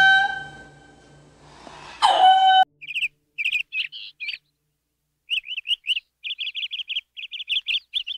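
An indri's loud wailing call, held on one pitch with a falling start and renewed around two seconds in, cuts off abruptly. It is followed by short high bird chirps, at first scattered, then in a rapid run of about six to eight notes a second.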